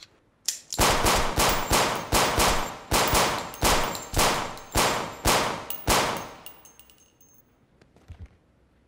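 A rapid volley of about a dozen handgun shots, roughly two a second, each echoing off hard walls. The echo dies away after the last shot, and a couple of faint clicks follow near the end.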